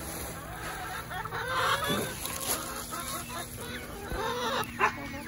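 A flock of hens clucking and calling over one another in an overlapping chatter of short calls, with a sharper, louder sound near the end.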